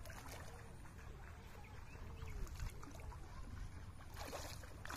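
Faint water sloshing and rustling as a wet cast net is gathered in shallow floodwater, with a louder brief swish of water and netting about four seconds in.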